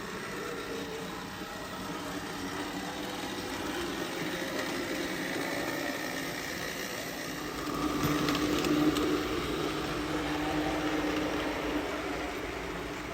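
HO scale Bowser 4-6-6-4 Challenger model steam locomotive running on track: its small electric motor whines steadily along with the rattle of the wheels on the rails. The sound grows louder for a few seconds past the middle, with a few clicks.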